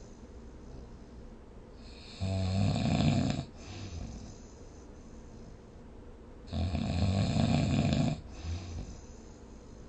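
Snoring: two long, loud snores, one about two seconds in and one about six and a half seconds in, each lasting over a second, with quieter stretches between them.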